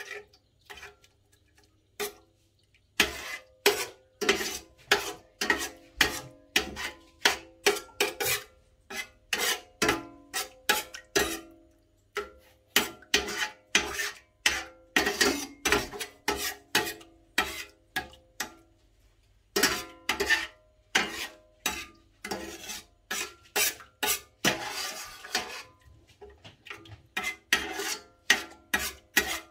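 Metal spoon repeatedly knocking and scraping against a stainless steel pan while mixing egg into crab meat. The strikes start about three seconds in and come about two a second, each with a short ring from the pan.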